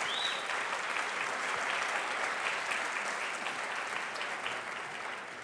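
Audience applauding: many hands clapping in a steady patter that dies away near the end.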